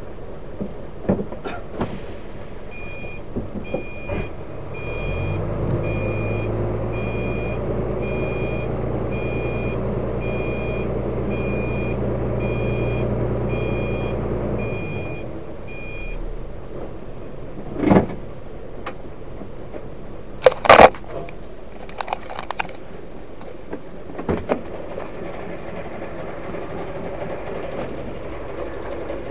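Dump truck's diesel engine running with a reversing beeper sounding short high beeps about once a second, the engine rising to a louder, heavier note for about ten seconds, then easing back. A few sharp knocks follow near the end.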